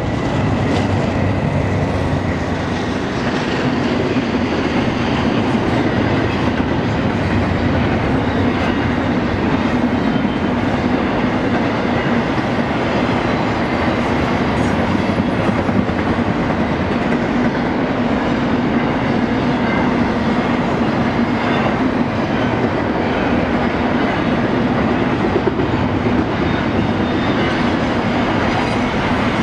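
Double-stack intermodal freight train's container well cars rolling past at a steady speed: the loud, even noise of steel wheels on the rails.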